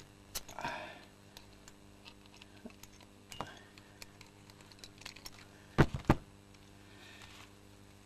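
Pliers and lashing-wire strands clicking as the cut strand ends of a wire splice on a J-bolt are tucked back: scattered light ticks and scrapes, with a louder cluster of two or three sharp clicks a little past the middle.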